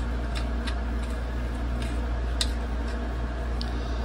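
A few faint, scattered metallic clicks as small nuts are threaded by hand onto the bolts holding an outboard motor's lower cowling, over a steady low hum.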